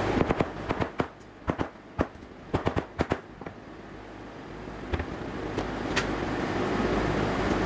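Steel claw hammer tapping on a thin wooden strip laid on a laminate countertop: a quick run of sharp taps in the first three seconds, then a few single knocks around five to six seconds in.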